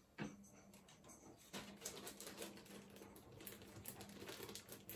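Faint handling noise: scattered light clicks and taps, with a faint steady low hum underneath.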